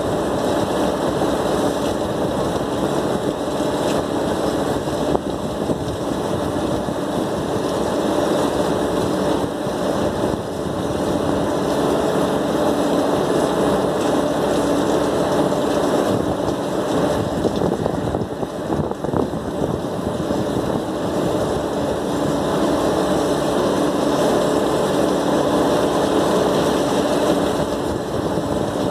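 Steady machinery running with a continuous hum, with water spraying from a hose wand into an air-cooled chiller's condenser coil during washing.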